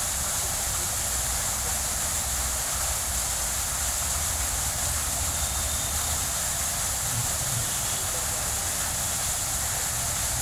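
Foaming jet fountain running, its frothy water columns falling back and splashing in a steady hiss, with a low rumble underneath.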